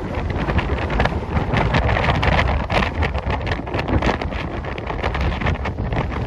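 Heavy, rough sea waves crashing and churning in a continuous roar, full of crackling spray, with strong wind buffeting the microphone.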